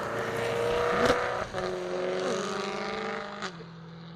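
BMW E92 M3's 4.0-litre naturally aspirated V8 running through an Armytrix valved exhaust as the car pulls away. The note steps down in pitch twice, about two seconds and three and a half seconds in, and fades as the car drives off.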